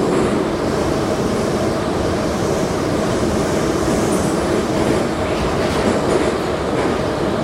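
81-717/714 metro train running at speed between stations, heard inside the car: a steady, loud rumble of wheels on rail.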